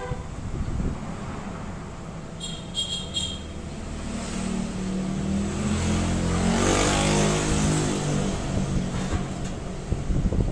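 A motor vehicle's engine passes close by, its note rising and then falling, loudest about seven seconds in.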